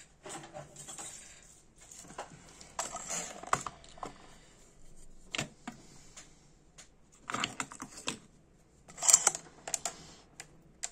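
Small metal spare parts clicking and rattling in a plastic compartment box as a hand sorts through it for a replacement O-ring. The sound comes in irregular bursts, the loudest near the end.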